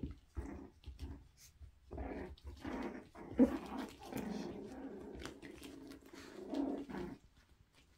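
Toy poodle puppies play-growling as they wrestle: a continuous low growl for several seconds, starting about two seconds in, with one short sharp loud sound partway through.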